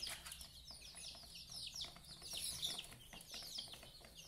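Many chicks peeping in the background: quick, high calls that slide downward, overlapping and repeating several times a second.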